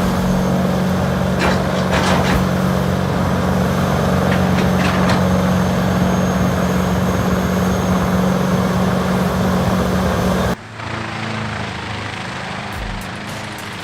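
Large horizontal wood grinder running under load, a steady heavy engine drone with a few sharp cracks of wood being broken up. About ten and a half seconds in, the sound cuts abruptly to a quieter, different machine running.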